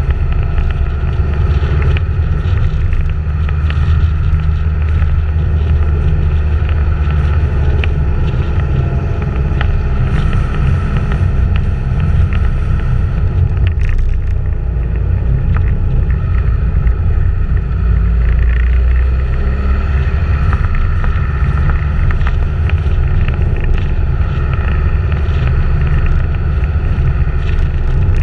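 Steady heavy wind rumble on the microphone of a camera moving at road speed, with a motor vehicle's engine running underneath.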